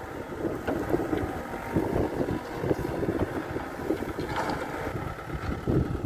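New Holland backhoe loader's diesel engine running under load as the backhoe arm digs, with wind buffeting the microphone.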